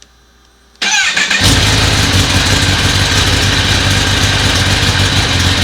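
Kawasaki ZX-10R's inline-four engine turned over by the electric starter about a second in, catching almost at once and settling into a steady idle on its first start after a fresh oil change.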